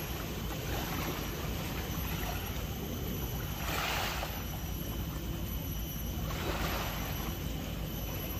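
Seaside ambience: wind rumbling on the microphone and small waves lapping at the rocks, with two brief louder washes about four and six and a half seconds in.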